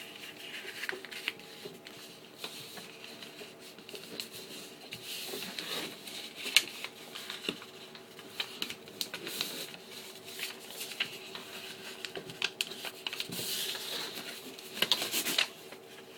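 A sheet of paper being handled, folded and creased, heard as scattered crinkles, rustles and sharp taps, with a faint steady hum underneath.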